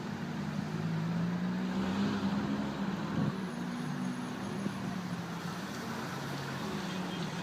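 Classic car engine running at low revs, its pitch holding fairly steady with slight wavers, over general road noise.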